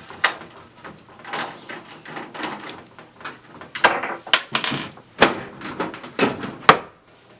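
Side panel of a desktop PC case being taken off: a run of clicks, knocks and scrapes, loudest about four, five and nearly seven seconds in.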